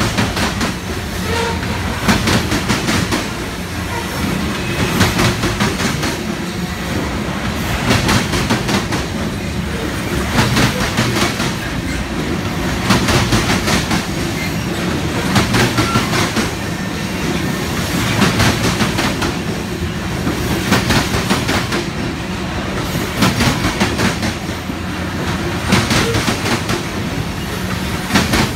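Covered hopper cars of a Union Pacific grain train rolling past at close range: a steady rumble of steel wheels on rail, with a cluster of clicks every two to three seconds as each pair of car trucks crosses a rail joint.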